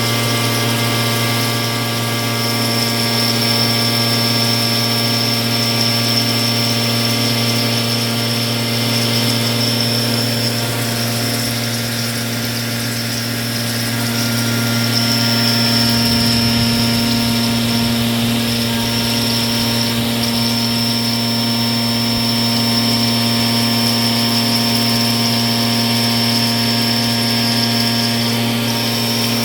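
CNC milling machine milling a pocket: a steady spindle whine over a low hum, with a high whistling tone that fades in and out as the cutter works. The loudness dips slightly for a few seconds midway.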